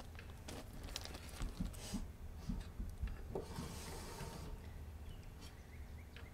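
Quiet handling sounds at a metal siding panel: a marker drawn along a straightedge across the steel, with light taps and clicks and a brief scratchy rub about midway. A low rumble runs underneath.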